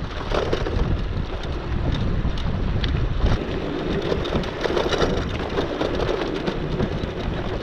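Wind buffeting the microphone and tyres rolling over a dirt road as a loaded touring bicycle coasts downhill, with many small clicks and rattles from the stones and the bike.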